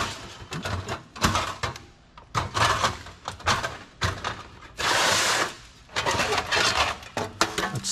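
Salvaged computer parts being handled: a series of knocks and clatters as pieces are picked up and set down, with one scraping, sliding sound lasting about a second midway.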